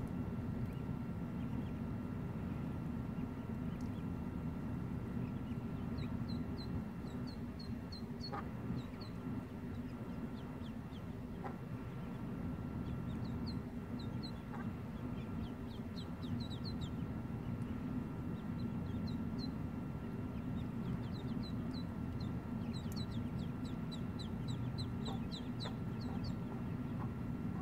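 Mallard ducklings peeping: short high chirps in scattered runs, busiest in the second half, over a steady low background noise.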